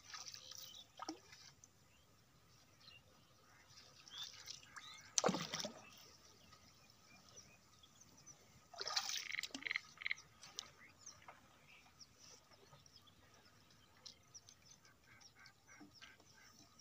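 Small splashes and drips of pond water as a hand and short line work at the surface, with two louder splashes about five and nine seconds in.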